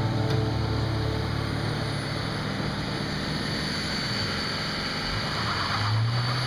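Pickup truck engine running as it tows a second pickup out of a snowy ditch on a chain.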